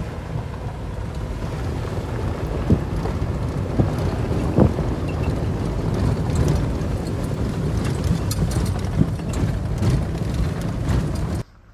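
Jeep Wrangler JK driving on an unpaved backcountry road: steady low road and engine rumble with scattered knocks and rattles from bumps. The sound cuts off abruptly near the end.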